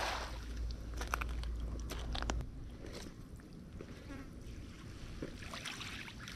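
Cast net being hauled in by its hand line: faint scattered ticks and rustles from the rope and net, loudest in the first two and a half seconds. A low rumble underneath stops about two and a half seconds in.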